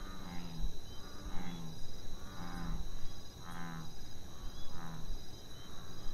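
Night pond ambience: insects keep up a steady high trill with regular chirps, and a frog calls five times in short low notes about a second apart.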